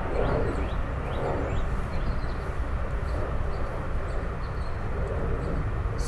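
Steady low drone of an airplane flying overhead, with a few short rising bird chirps in the first couple of seconds.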